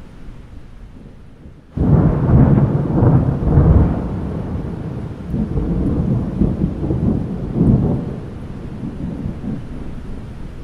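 Thunderstorm: rain falling under a thunderclap that breaks in suddenly about two seconds in and rolls on as a deep rumble, swelling once more later before easing off near the end.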